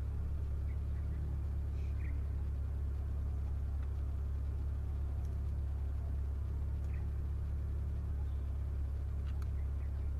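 Steady low hum without a break, with a few faint short high chirps scattered through it.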